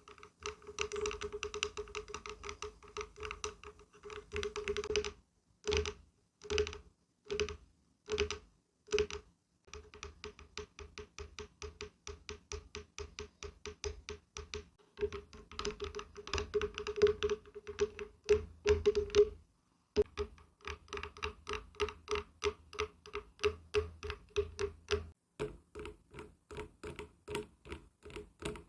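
Fingertips and fingernails tapping on wood. The taps come in fast runs of several a second and at times slow to single knocks about half a second apart, each with a short hollow ring. There is a brief pause near the middle.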